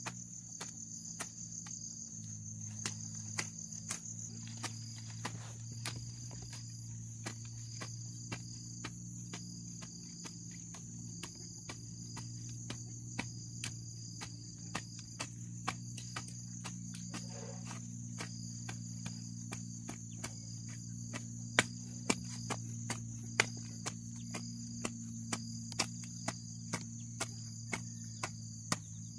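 A steel hoe chopping and scraping into grassy soil in repeated irregular strikes, over a steady high chirring of crickets and a second insect call pulsing over and over. A low steady hum runs underneath.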